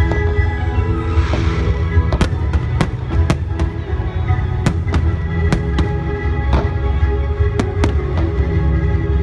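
Aerial fireworks shells bursting in a run of sharp bangs, one or two a second, with a short crackling hiss about a second in, over music with sustained notes.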